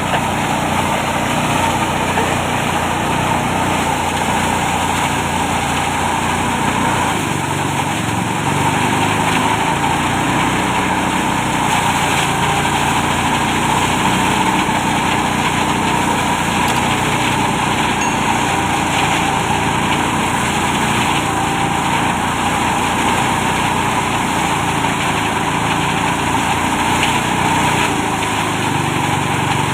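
Engine-driven rice thresher running steadily, a small engine's drone with the rush of the threshing drum.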